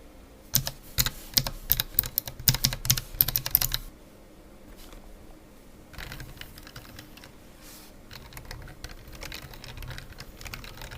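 Typing on a Razer BlackWidow Elite mechanical keyboard: a quick, loud run of key clacks for the first few seconds, then a brief pause, then softer, steadier typing from about six seconds in.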